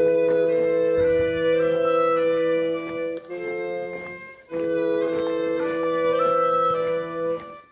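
Wind instruments, clarinets prominent, playing a slow solemn piece in long held chords; the sound drops back briefly about three seconds in, then the chords swell again.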